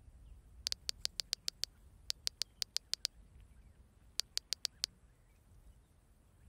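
Typing on a smartphone's on-screen keyboard: three quick runs of key clicks, about seven a second, with short pauses between them as a message is typed.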